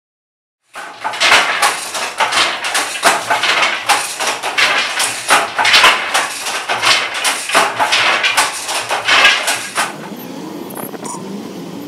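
Wooden handloom being worked: a fast, loud clatter of wooden knocks, about three a second. Near the end the clatter stops and a steady vehicle engine hum with road noise takes over.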